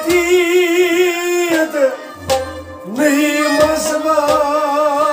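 A man sings a Kashmiri folk song to a harmonium. He holds two long notes with vibrato, with a short break about two seconds in, and a few sharp clicks sound among the notes.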